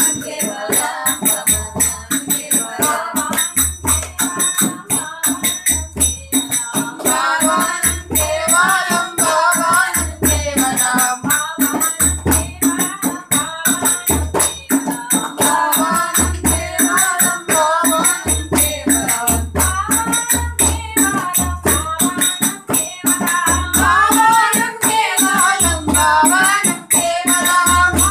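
Devotional song: a melodic singing voice over a fast, steady rattling and jingling percussion beat, with a low drum stroke every second or two.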